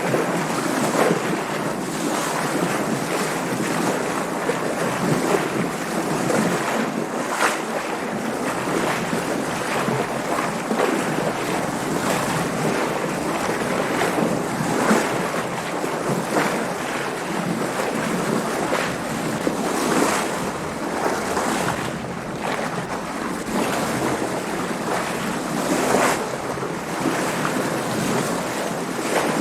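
Water splashing and slapping against a sailboat's hull as it moves through waves, with wind. The sound is a continuous wash broken by irregular louder splashes every second or so.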